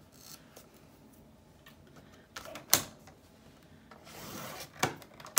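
Sliding paper trimmer cutting the edge of a sheet of book paper: two strokes of the blade carriage scraping along the rail, each ending in a sharp click at the end of travel, the first about two and a half seconds in and the second near the end.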